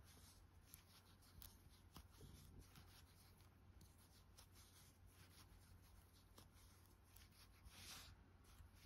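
Near silence: faint soft ticks and rustling of a metal crochet hook pulling yarn through stitches, over a low steady hum.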